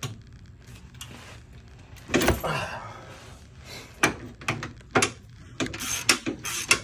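Ratcheting wrench clicking as it works the nut off the front leaf-spring bolt of an EZGO golf cart, with a louder scraping clunk about two seconds in and a quicker run of clicks near the end.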